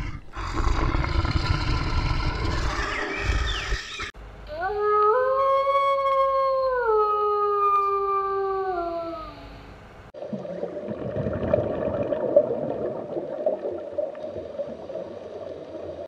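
A brown bear growling with a rough, low sound, then a grey wolf giving one long howl that rises, holds and slides down in pitch over about five seconds, followed by a rough, noisy sound for the last six seconds.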